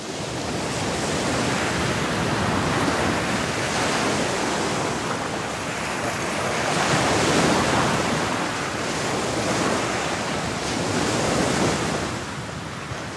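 Ocean waves: a steady rushing wash that swells and eases several times.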